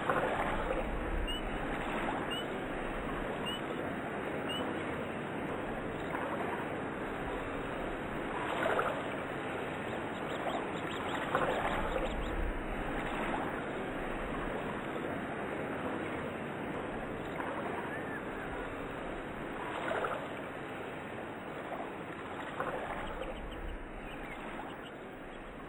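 A steady rush of running water with a few small bird chirps about a second apart in the first few seconds, and now and then a louder swell of splashing.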